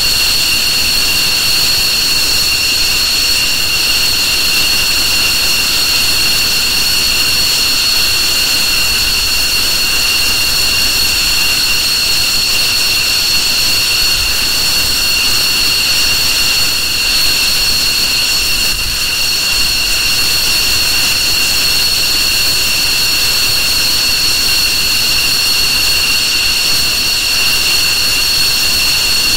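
F-15J Eagle's twin Pratt & Whitney F100 turbofan engines running at a steady idle: a loud, high-pitched jet whine over a rushing roar, holding one pitch throughout.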